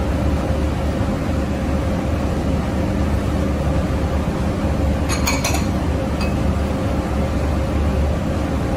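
Porcelain clinking: a quick cluster of clinks about five seconds in and one more about a second later, as a china sauce boat is set down by a china bowl of mushrooms. Under it is a steady low hum.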